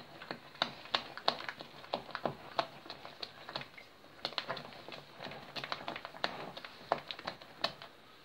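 A mixing utensil clicking, tapping and scraping against a ceramic baking dish as thick brownie batter is stirred, flour being worked into the melted chocolate mixture. The taps come irregularly, several a second, with short pauses between spells of stirring.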